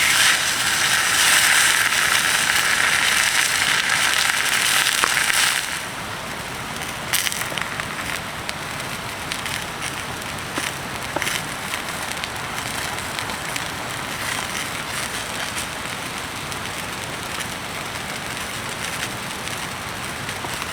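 A wood fire crackling with sharp pops over a steady hiss of rain. A louder high hiss fills the first five and a half seconds and cuts off suddenly.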